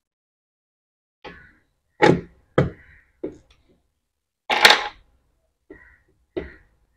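Plastic headlight parts knocking and clicking as a part is pressed and seated into the BMW headlight housing: about seven short, separate knocks, the loudest and longest about four and a half seconds in.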